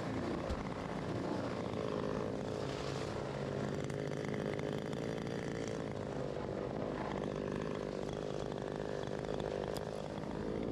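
Redbeard-ported Husqvarna T540 XP Mark III top-handle two-stroke chainsaw idling steadily between cuts.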